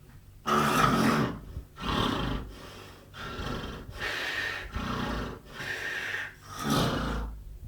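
Loud snoring: about seven heavy, noisy snores, each about a second long, in quick succession. The first and last are the loudest.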